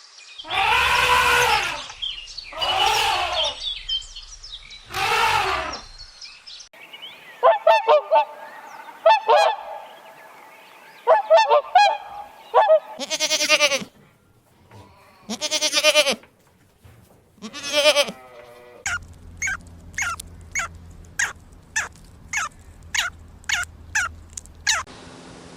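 Farm animal calls in a string of separate clips. There are three loud drawn-out calls in the first six seconds, then scattered shorter calls. From about 19 seconds there is a regular run of short high calls, about two a second, over a low steady hum.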